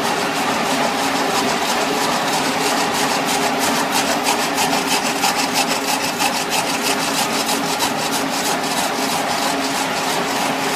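Helical tomotherapy treatment machine running with the beam on: a steady mechanical hum with several held tones, overlaid by a fast, even ticking of several ticks a second that is strongest in the middle.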